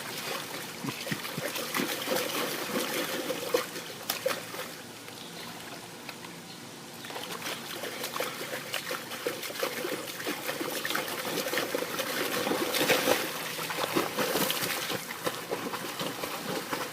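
Pool water splashing and trickling in an irregular, continuous patter, dipping quieter for a couple of seconds about five seconds in.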